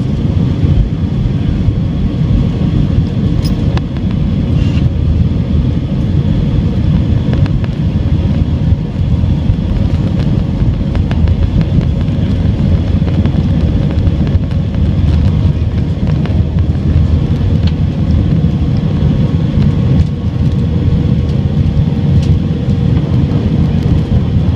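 Jet airliner's engines at takeoff thrust, heard from inside the cabin during the takeoff roll, with the rumble of the wheels on the runway: a loud, steady low noise with a faint steady whine over it.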